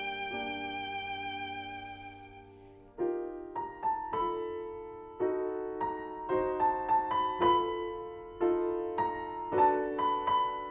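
Orchestral film-score music: a held violin note with vibrato fades away, then a solo piano melody of separate struck notes begins about three seconds in.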